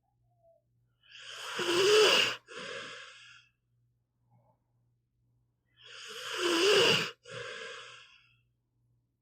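Pit bull snoring in its sleep: two slow snoring breaths about five seconds apart, each a loud part followed after a short break by a quieter one.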